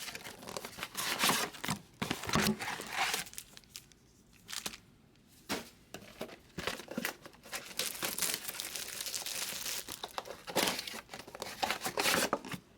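Plastic and foil packaging crinkling and tearing as trading-card boxes and packs are opened, in irregular bursts with a short lull about a third of the way through.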